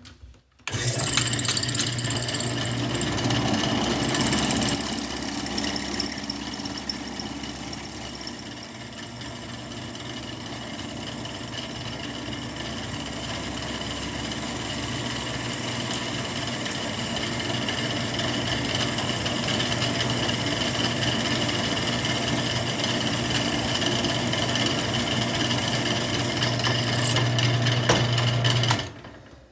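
Electric drill running as it drills out a stripped steel scope base screw in a shotgun receiver. It starts about a second in, is rougher and louder for the first few seconds while the bit bites, then runs steadily until it stops shortly before the end.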